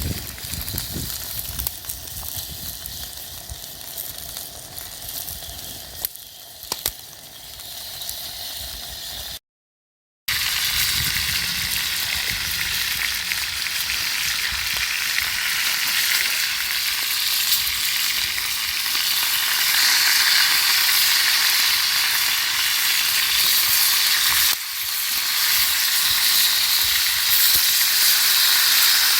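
Food frying over a campfire: a steady sizzling hiss, quieter with a few clicks at first, then much louder after a short break about ten seconds in.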